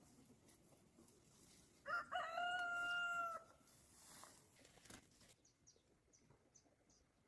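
A rooster crows once, a held call of about a second and a half starting about two seconds in. Faint, short, high chirps follow near the end.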